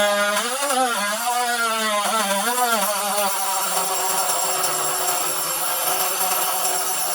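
Small electric power tool motor, such as a rotary tool or drill, running as it is worked against the piece. Its whine rises and falls in pitch twice in the first three seconds, then holds steady.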